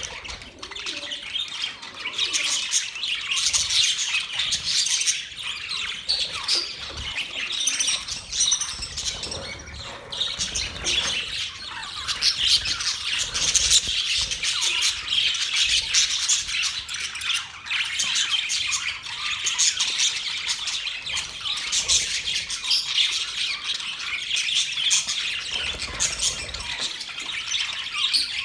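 Many small birds chirping and chattering together in a dense, continuous jumble of short calls with occasional squawks.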